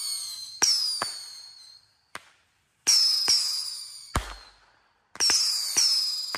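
Whistling deadhead fireworks firing one after another. Each gives a sharp pop, then a high, shrill whistle that falls slightly in pitch and fades over about a second and a half. The whistles come in pairs and overlap, with short lulls about two and five seconds in.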